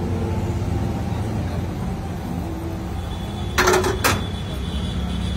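Steady low rumble of street background noise, with two short clattering noises a little after three and a half seconds and again about half a second later.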